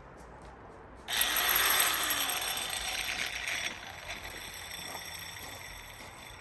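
Angle grinder with a diamond tile blade switched on about a second in and run briefly with no load, a high whine that is loudest at first, then eases and keeps whining more faintly.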